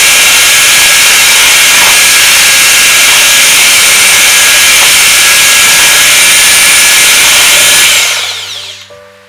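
Electric hand mixer running steadily, its beaters whipping heavy cream and condensed milk in a bowl. The motor is switched off about eight seconds in and its sound dies away quickly.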